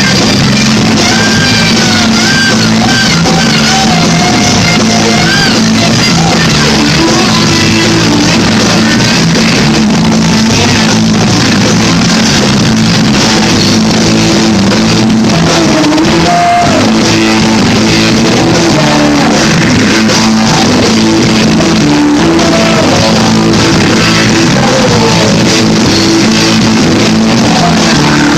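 A rock band playing, with electric guitar lines that bend and waver in pitch over a steady bass and rhythm section.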